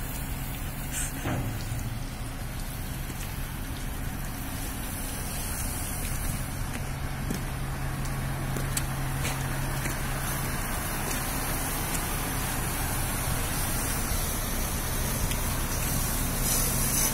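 A heavy diesel truck engine idling with a steady low hum under a constant even hiss.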